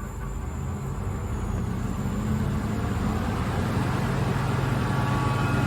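KAESER SK25 rotary screw air compressor starting up under its frequency inverter: the motor ramps up and the running sound grows steadily louder, with steady tones coming in near the end.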